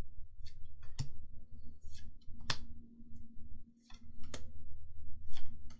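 Pokémon trading cards being handled and flicked through by hand: a series of short, irregular clicks and snaps as the cards slide over one another, over a faint steady hum.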